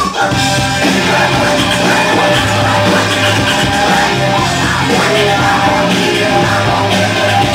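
A DJ set played loud over a nightclub sound system: rock-style music with singing and a heavy bass line.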